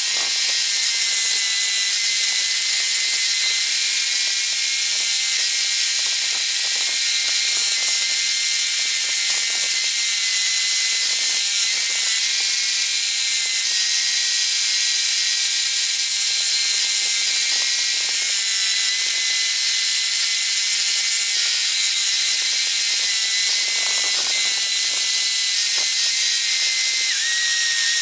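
Homemade scroll saw running steadily as its blade saws through wood, a high mechanical whine that jumps slightly in pitch a few times.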